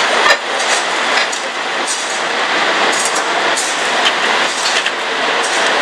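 Octopus tentacles sizzling on a hot grill grate, a steady hiss, with scattered clicks of metal tongs against the grate as the pieces are turned.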